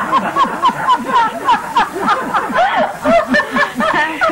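Several women laughing together, a run of quick repeated ha-ha pulses with voices overlapping.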